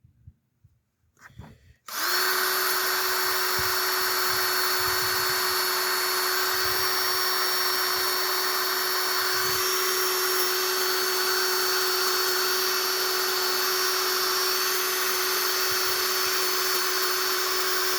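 Cordless drill spinning a wire wheel at a steady speed, starting suddenly about two seconds in and running on without change, used to clean a corroded battery cable end.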